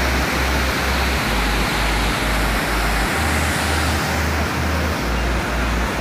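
White water of the Hogenakkal Falls cascading over rock ledges: a loud, steady rush of falling water.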